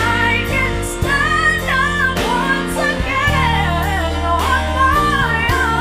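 Live band music: a high, winding lead melody with vibrato and quick runs over electric guitar, drums and keyboard.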